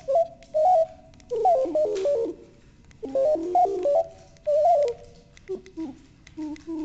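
Homemade accelerometer-controlled synthesizer: a sine-wave oscillator with frequency modulation, played in short button-pressed notes that start and stop every second or so. Its pitch jumps and wavers in small steps as the instrument is tilted, with the jitter of the accelerometer.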